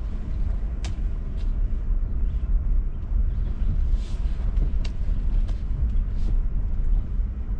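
Inside the cab of a Rivian R1T electric pickup rolling slowly over a dirt trail: a steady low rumble of tyres and suspension, with no engine note, and a few short sharp ticks.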